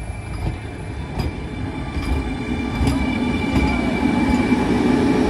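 Vande Bharat Express electric multiple unit pulling out and rolling past close by, its wheels clicking over rail joints at intervals of under a second over a steady rumble and a steady high whine. The sound grows louder as the coaches pass.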